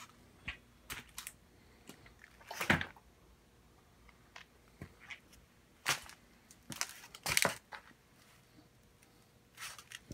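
Scattered light clicks and a few louder knocks, the loudest about a quarter of the way in and again about three-quarters of the way in.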